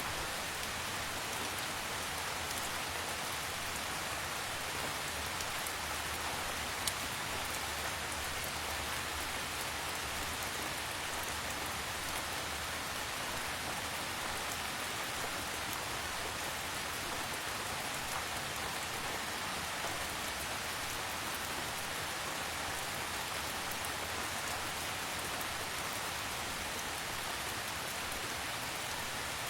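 Calm rain falling steadily, an even patter with no thunder, with one sharp tick of a drop about seven seconds in.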